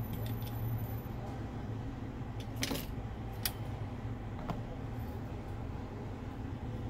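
A few light clicks and clinks from handling a phone charging-port board and small tools on a repair mat, over a steady low hum.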